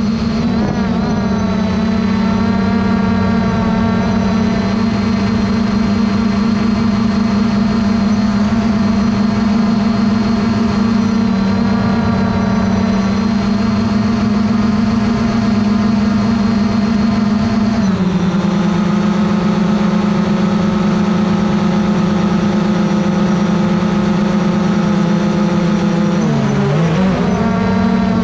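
Small quadcopter drone's electric motors and propellers whining steadily. The pitch drops in a step about two-thirds of the way through, then dips and recovers briefly near the end.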